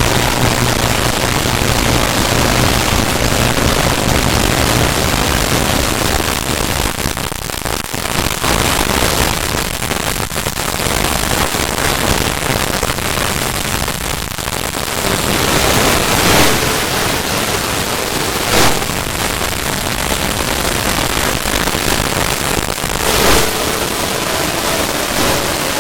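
Steady loud hiss of noise, with a few short sharp knocks in the second half.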